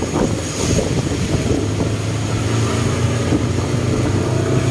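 Speed boat engine running steadily under way, heard from aboard with a rush of wind and water. Its low hum settles into a steady pitch about a second and a half in.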